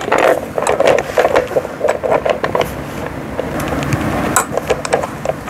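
Hard plastic parts of a toddler tricycle knocking, clicking and scraping as the rear storage basket is pushed and worked into its fitting on the frame, in irregular knocks throughout.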